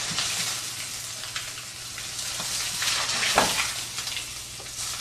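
Chicken thighs searing in canola oil in a hot frying pan: a steady sizzle, with a few light clicks and one sharper knock about three and a half seconds in.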